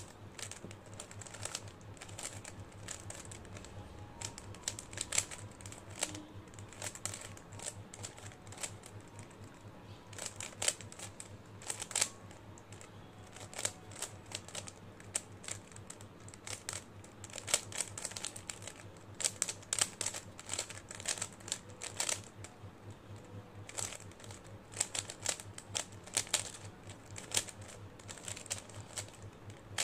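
Plastic 3x3 Rubik's cube being turned fast by hand in a timed speedsolve: irregular runs of quick clicking layer turns with short pauses between them.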